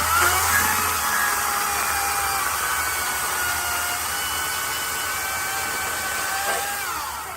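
EGO CS1800 18-inch battery chainsaw's electric motor spinning up and running with a steady high whine, then winding down near the end as the trigger is let go.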